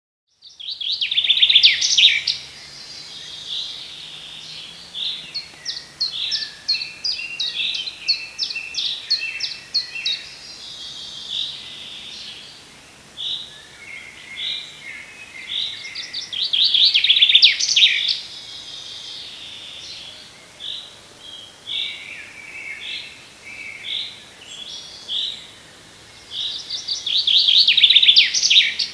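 Springtime chorus of wild songbirds. One bird repeats a loud, fast, rattling song phrase three times, roughly ten seconds apart, and other birds sing softer, separate notes in between.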